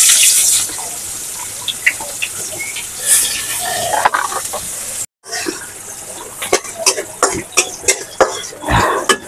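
Chopped onions frying in hot oil in a karai (wok): a loud sizzle eases within the first second to a steady hiss. After a break about five seconds in, a metal spatula clinks and scrapes against the wok as the onions are stirred.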